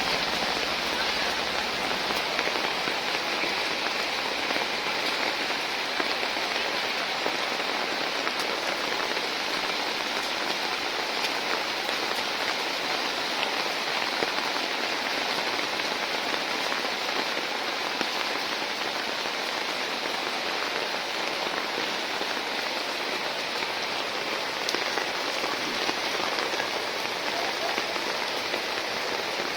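Heavy rain falling steadily, a dense even hiss with a few faint taps.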